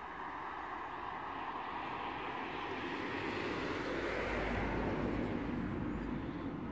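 An aircraft passing overhead: a steady rushing noise that swells to its loudest about five seconds in, its pitch sliding slowly downward as it goes by.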